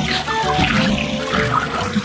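Background music with a melody, over water swirling and splashing as it drains down a whirlpool.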